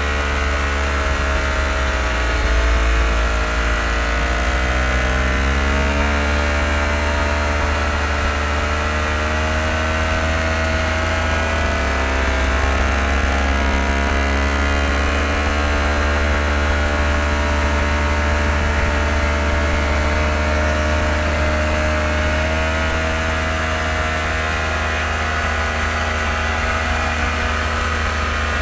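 Motorbike engine running steadily, its pitch drifting slightly up and down.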